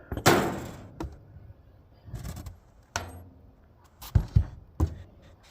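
Handling noises: a brief rustle and scrape near the start, then a few separate sharp knocks and clicks, the loudest a pair about four seconds in.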